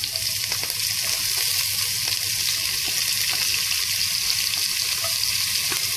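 Sliced red onions sizzling in hot ghee with cumin seeds in a pot: a steady frying hiss.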